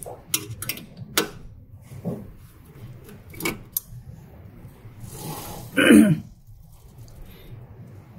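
Hand tools working on the metal capping station of a UV printer: a few scattered sharp clicks and taps as screws are locked back, then a louder, longer noisy burst about six seconds in.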